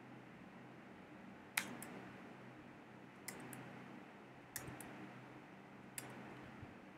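About five separate clicks from someone working at a computer's keyboard and mouse, the loudest about a second and a half in, over a low steady hum.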